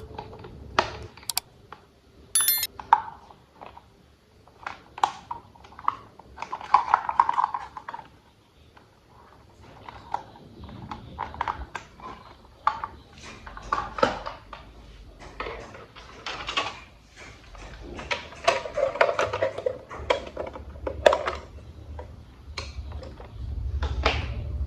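Plastic toy train parts being handled and fitted together: a long run of light clicks, taps and rattles, with a short ringing ping about two and a half seconds in. A low hum comes in near the end.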